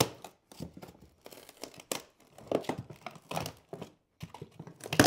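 Old pine tongue-and-groove floorboard being pried up with a steel pry bar: a run of irregular cracks, creaks and scrapes as the wood splits along its edge, with the sharpest crack near the end.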